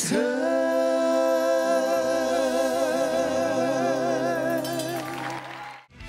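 Pop ballad's final word held as one long sung note with vibrato by voices in harmony, over soft backing music; it cuts off sharply just before the end.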